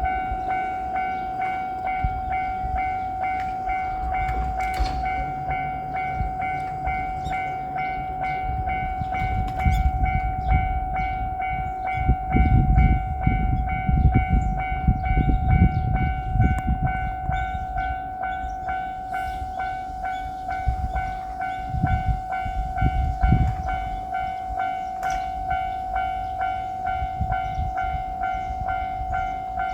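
A Japanese level crossing's electronic warning bell rings in steady, even strokes throughout. A JR Shikoku 8000 series electric limited express passes through the crossing with a heavy rumble and wheel clatter, loudest about a third of the way in, followed by a few more low rumbles later on.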